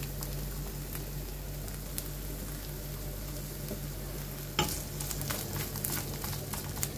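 Thin slices of beef sizzling steadily in a hot pan. About two-thirds of the way in, a metal fork starts clicking and scraping against the pan as the strips are moved.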